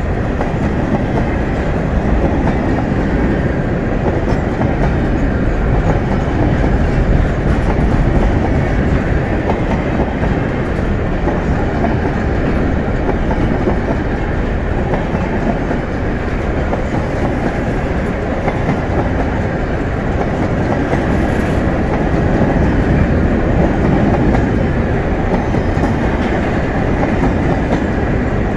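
Freight train's grain hopper and tank cars rolling past close by: steel wheels running on the rails, a steady loud rumble.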